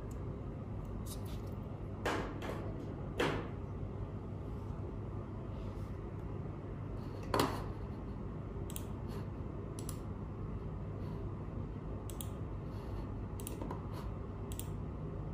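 Sharp plastic clicks and knocks from a microSD card and a small USB card reader being handled, three of them in the first half, the last the loudest, then several light clicks later on. A steady low hum lies under it all.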